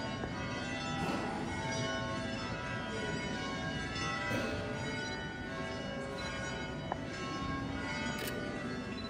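Church bells ringing, struck again and again, their tones ringing on and overlapping.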